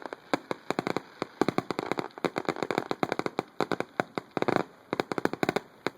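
Fireworks finale: a rapid, irregular barrage of bangs and crackling pops, many per second.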